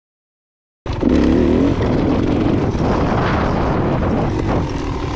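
Beta Xtrainer two-stroke enduro dirt bike engine running under throttle, its note rising and falling. It cuts in suddenly about a second in.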